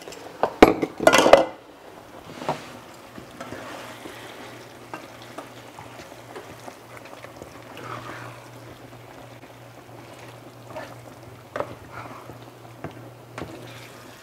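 A few loud clatters of kitchenware in the first second and a half, then taco meat in a skillet sizzling faintly as it is stirred and scraped with a spatula, with small scrapes and clicks over a steady low hum.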